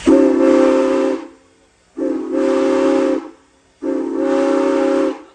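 Steam whistle of No. 475, a 1906 Baldwin 4-8-0 steam locomotive, blown three times. Each blast lasts just over a second and sounds several notes at once, with a short dip in pitch as it opens.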